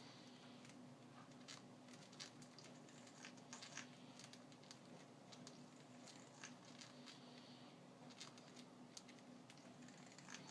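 Faint, irregular clicks and short squeaky creaks over a low steady hum.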